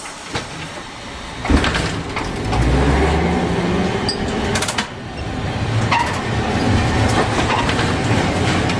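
Electric streetcars on rails: rumbling wheel-on-rail noise and a low motor hum, growing suddenly louder about a second and a half in as an oncoming tram passes close alongside on the next track, with a few sharp clicks around the middle.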